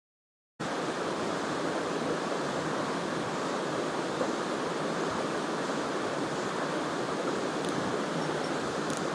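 Steady rush of a mountain stream's flowing water, starting suddenly about half a second in after dead silence.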